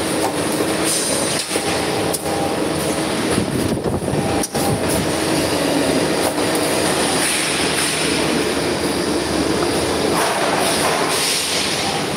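Copper tube cutting and end-forming machine running, with copper tube fed through its roller straightener: a steady mechanical clatter with a few sharp clicks.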